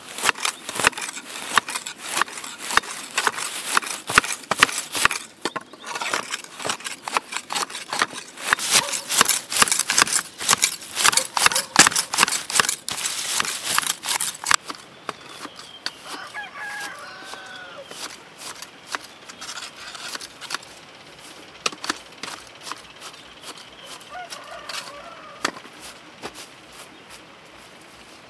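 Grass shears snipping grass close by in quick, irregular cuts, growing much fainter after about 15 s. A rooster crows twice in the background in the quieter part.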